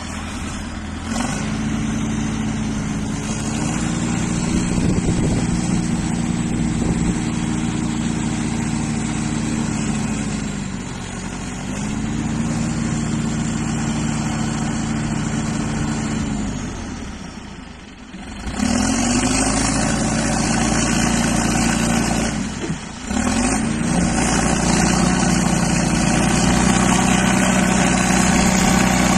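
Caterpillar 518 skidder's diesel engine working hard, its revs climbing and holding, then sagging and picking up again three times. From about two-thirds of the way in, a harsher, noisier sound joins the engine.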